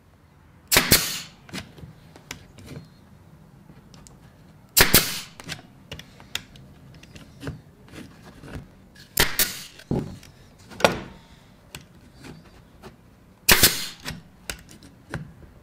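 Makita pneumatic nailer firing nails into MDF: a series of sharp shots a few seconds apart, some in quick pairs.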